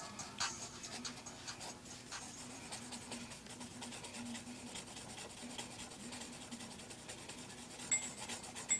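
Graphite pencil scratching on paper in a run of short shading strokes, faint and irregular, as hair is sketched in.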